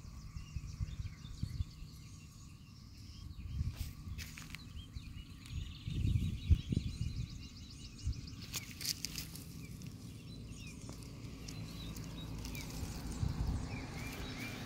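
Outdoor ambience: an irregular low rumble on the microphone with a few bumps, loudest about six and a half seconds in, and faint bird chirps near the end.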